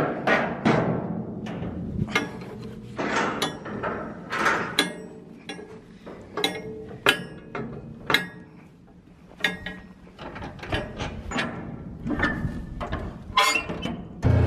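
Steel shipping-container doors being swung shut and their locking bars and handles latched: a string of irregular metal clanks and bangs, each ringing briefly, with a lull in the middle.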